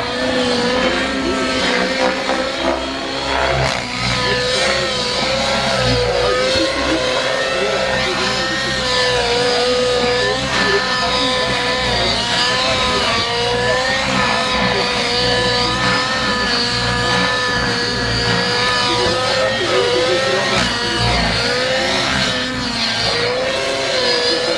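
Radio-controlled model helicopter's small engine running at high revs, a steady high whine that wavers slightly in pitch as the model manoeuvres.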